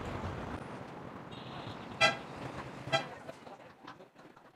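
Two short vehicle horn toots about a second apart, over street traffic noise.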